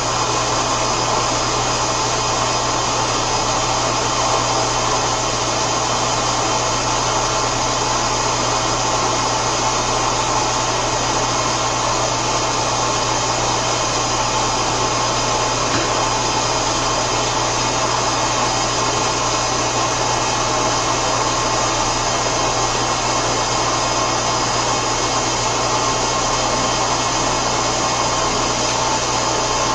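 Lagunamatic 3516 vertical machining center running: a steady, unvarying whir and hiss of its motors with a low electrical hum.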